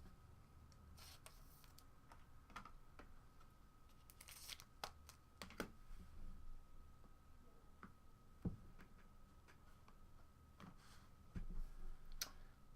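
Faint rustling and soft clicks of trading cards being handled, slid and flipped over, a few sharper ticks in the middle, over a faint steady tone.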